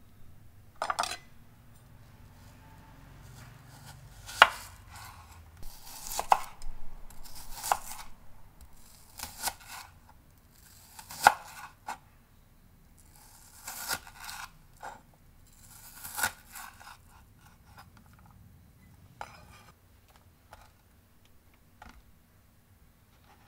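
Chef's knife slicing an onion thinly on a wooden cutting board: irregular sharp knocks of the blade striking the board, in short runs of cuts with pauses between. The knocks grow sparse near the end.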